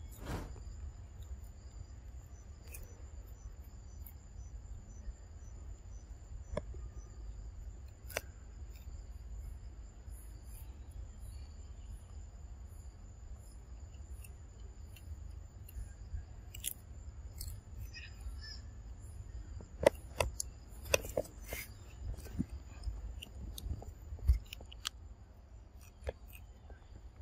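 Macaques eating vegetables and fruit: scattered sharp crunches and clicks of chewing and handling food, loudest in a cluster about two thirds of the way through. A steady high insect whine and a low rumble run underneath.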